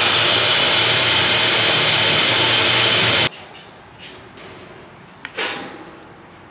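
Electric drill running with a hole saw cutting through the steel wall of a drum, a loud steady whine that cuts off suddenly about three seconds in. After it come a few light handling knocks.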